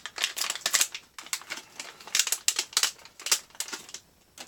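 Packaging of a small tactical backup light being pried and torn open by hand: a rapid, irregular run of crackling clicks and crinkles for about four seconds, then one last click near the end.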